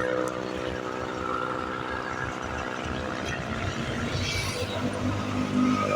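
Large bus diesel engine running at low revs, with a short hiss about four seconds in.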